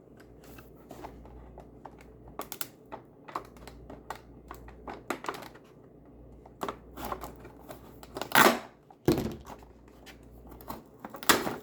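Hands opening small blind-box packaging from a miniature-toy advent calendar: scattered clicks and crinkles, with two louder tearing rips, one about eight seconds in and one near the end.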